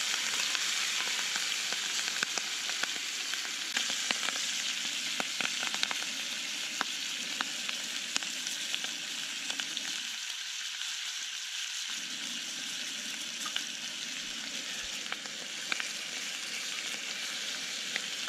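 Venison steaks and canned mushrooms frying in butter in a cast-iron pan: a steady sizzle with scattered pops and spatters.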